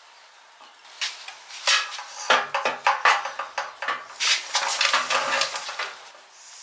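Irregular metallic clinking and clattering: a quick run of knocks and rattles, some with a short ring.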